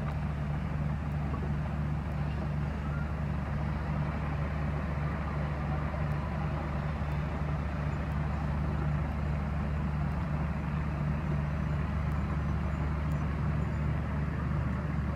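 Scania P380 truck's diesel engine running steadily at low revs as it slowly pulls a lowboy trailer.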